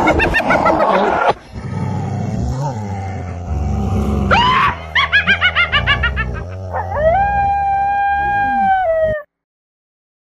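Halloween sound effects over a low droning music bed: wavering screams, then a long held howl that falls in pitch at its end. The sound cuts off suddenly about nine seconds in.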